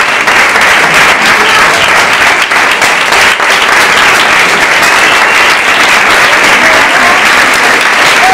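Loud, steady applause from a crowd, with the cast on stage clapping along.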